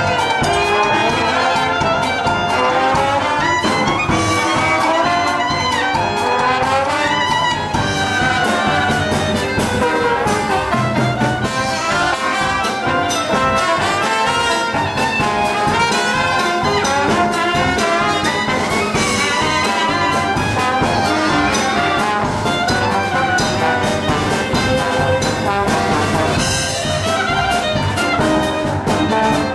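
Yiddish swing band playing live, clarinet, trumpets, trombone and alto saxophone together over a steady beat.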